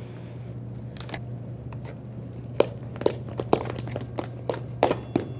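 Spatula scraping and knocking against a stainless steel mixing bowl as peanut butter is folded into thick whipped icing: irregular clicks and scrapes that start about a second in and come faster and louder over the second half.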